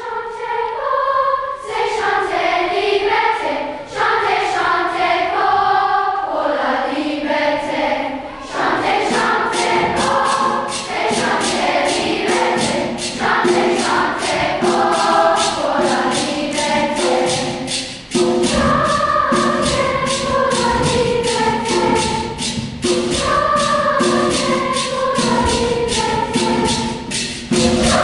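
Children's choir singing in parts. About eight seconds in, a steady percussion beat joins the singing.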